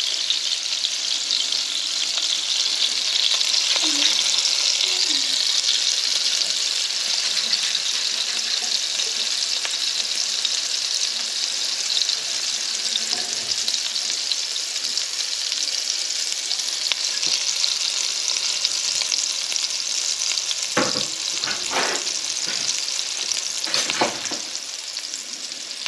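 Quarkkeulchen (potato-and-quark patties) frying gently in fat in a pan, giving a steady sizzling hiss. A few short knocks come near the end.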